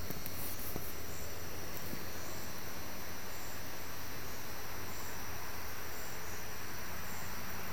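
Night insects chirping: a steady high trill with a short, higher pulse repeating about once a second, over a faint low hum.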